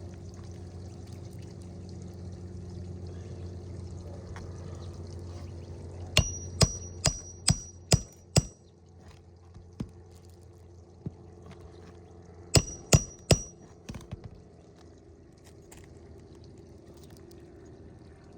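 Hammer driving roofing nails through a new asphalt shingle: six quick strikes about half a second apart, then three more a few seconds later, each with a short metallic ring. A steady low hum runs underneath.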